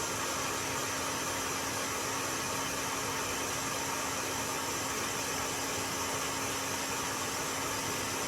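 Heat gun blowing a steady hiss of hot air with a faint steady hum under it, warming a phone's back glass to soften the adhesive holding it on.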